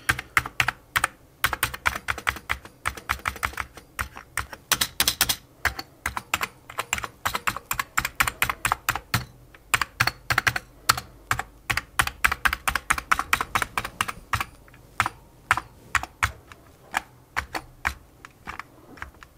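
Keys of an Amiga A600 membrane keyboard being pressed one after another in quick, irregular clicks, during a key-by-key test of a keyboard whose membrane has just been cleaned because some keys were not registering.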